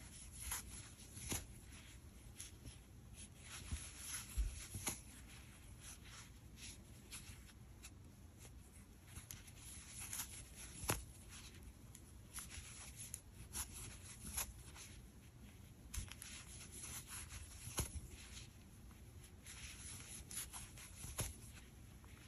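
Faint rubbing and scattered light clicks of a crochet hook drawing chunky acrylic yarn through stitches while single crocheting two pieces together.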